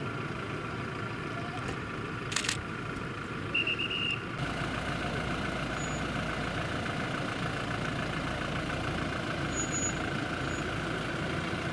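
Steady engine idling hum. A sharp click comes a little over two seconds in, then a short run of about five quick electronic beeps. From just after four seconds the low rumble grows louder and stays even.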